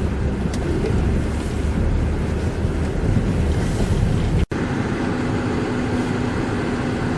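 Blizzard wind gusting hard against the microphone, heavy and low. About four and a half seconds in it cuts off abruptly and gives way to a steadier rushing noise with a low steady hum.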